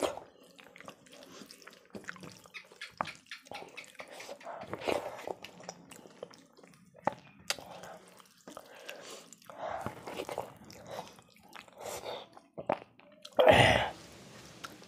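Close-up wet eating sounds: lip smacks and chewing of soft rice and dal eaten by hand, with squelching as fingers mix the food on a steel plate. Many small sharp clicks, and one louder, fuller noise near the end.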